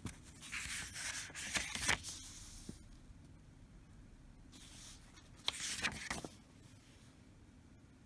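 Paper rustling as the pages of a CD booklet are handled and turned, in two bursts a few seconds apart, with a few sharp crackles.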